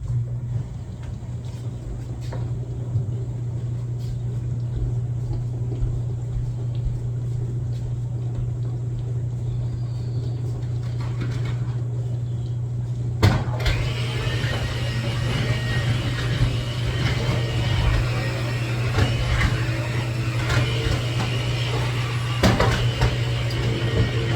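A motor switches on abruptly and runs with a steady low hum. About halfway through, a busier rattling noise joins it.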